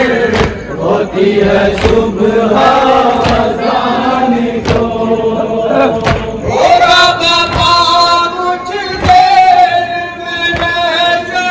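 Men's voices chanting a Shia noha (Muharram lament) together in long, held lines, the pitch stepping up a little past the middle. Sharp strokes of chest-beating (matam) keep a steady beat about once every one and a half seconds under the chant.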